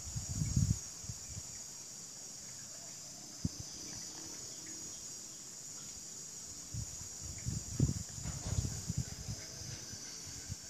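Steady high-pitched chorus of insects, with irregular low thumps and rumbles near the start and again from about seven to nine and a half seconds in.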